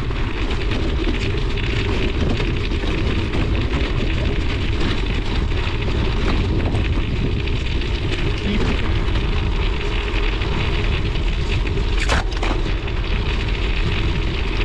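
Studded fat-bike tire rolling over lake ice, a steady, loud rumbling and crackling noise. A single short, sharp crack about twelve seconds in.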